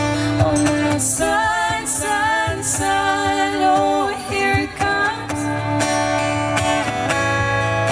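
Background music: a song with a singing voice over guitar and a steady bass.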